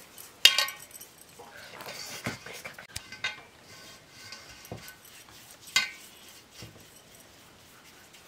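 Steel bowl and metal tray clinking as dough is handled: two sharp clinks with a brief ringing tail, about half a second in and near six seconds in, with softer taps and knocks between.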